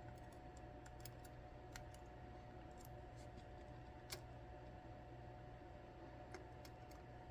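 Faint, sparse small clicks of tools against the small metal parts of a lock cylinder being taken apart, over a steady low hum; one click about four seconds in is a little louder.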